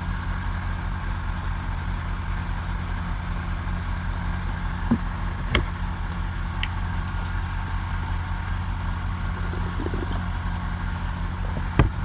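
Steady low mechanical hum of a running motor, with a few faint clicks midway and two sharper knocks near the end.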